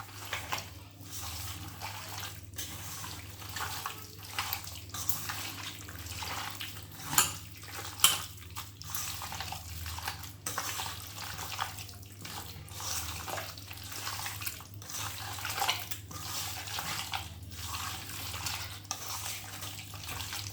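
Raw chicken pieces being mixed by hand in a thick, wet marinade in a bowl: irregular wet squishing strokes, with two sharper knocks a little before the middle.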